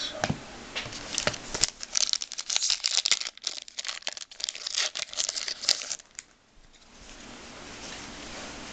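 Plastic trading-card pack wrapper being crinkled and torn open by hand: a dense run of sharp crackles for about four seconds, which stops about six seconds in.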